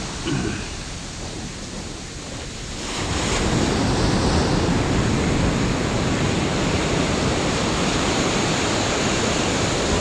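Surf washing up a sandy beach: quieter at first, then a wave surges in about three seconds in and its foam keeps hissing steadily over the sand.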